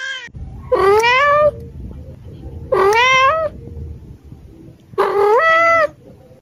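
A cat meows three times, about two seconds apart, each call starting low, rising in pitch and then holding.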